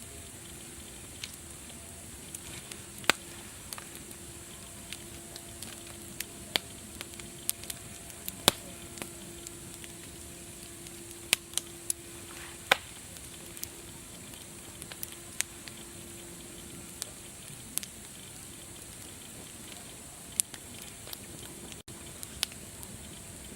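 Wood fire crackling: sharp, irregular pops and snaps over a steady hiss.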